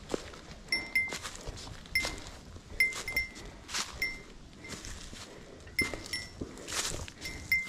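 Footsteps on dry fallen leaves covering a forest trail, with a small bell, typical of a hiker's bear bell, giving short ringing pings in time with the steps, often two close together.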